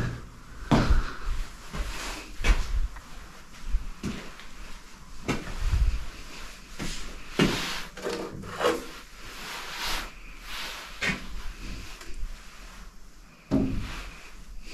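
Irregular footsteps, scuffs and knocks in a small bare room, a dozen or so short hits at uneven intervals, the sound of someone moving about and handling things on a gritty concrete floor.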